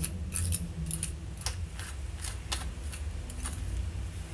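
Light, uneven clicks and ticks of a Parker 61 fountain pen being turned and handled in the fingers, about ten in all, over a low steady hum.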